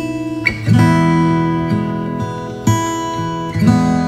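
Background music: acoustic guitar strumming chords, a new chord about every second.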